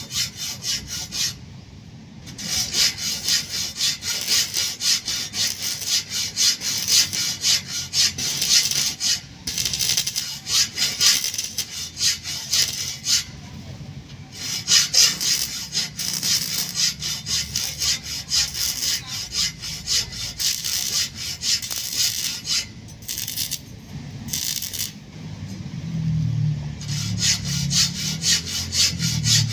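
Handsaw cutting through wood in quick, repeated strokes, stopping briefly a few times.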